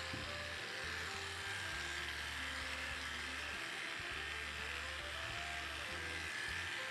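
Electric dog clippers buzzing steadily as they shave through a matted coat, with background music.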